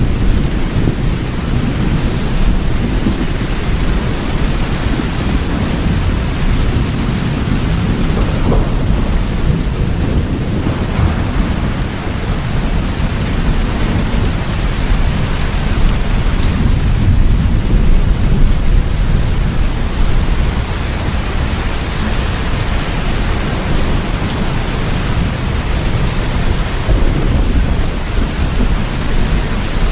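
Steady heavy rain with a continuous low rumble of thunder beneath it, swelling slightly a little past the middle.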